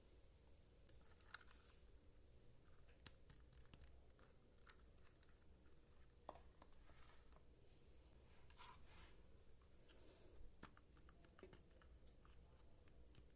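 Faint, scattered clicks and crinkling rustles from small plastic toy pieces and packaging being handled during an unboxing, irregular with no steady rhythm.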